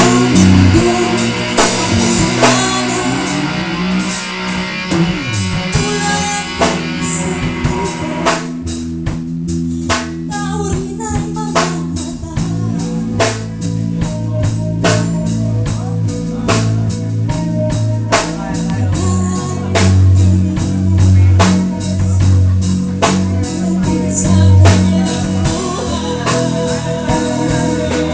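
A rock band playing a song: electric guitar, bass and drum kit. About a third of the way in the band thins out for a few seconds, then the full sound returns.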